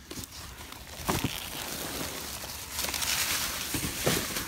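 Plastic garbage bags rustling and loose trash shifting as someone rummages through a dumpster by hand, louder in the second half.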